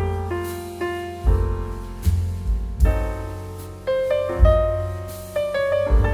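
Background music led by piano: struck notes that ring and fade, over a deep bass note that comes about every one and a half seconds.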